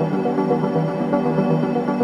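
Background music with a steady pulse and sustained synthesizer-like notes, in an ambient electronic style.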